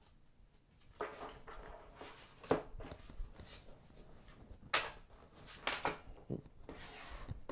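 Tarot cards being shuffled and cut by hand against a table top: irregular slaps and swishes of the cards, starting about a second in.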